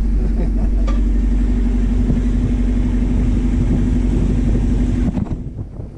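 Sailboat's inboard diesel engine running steadily under power: a loud, even drone with a constant hum. About five seconds in it drops away to wind on the microphone.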